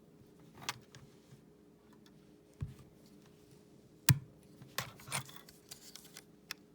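Sharp metallic clicks and snaps from replica flintlock pistols being handled, about six in all, the loudest about four seconds in. They fit the non-firing locks being cocked and snapped.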